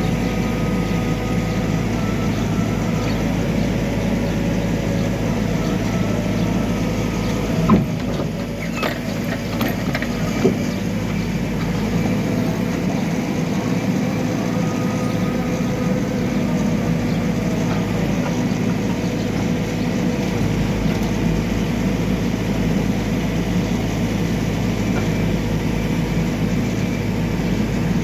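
Backhoe loader's diesel engine running steadily, with two short metallic knocks about eight and ten seconds in.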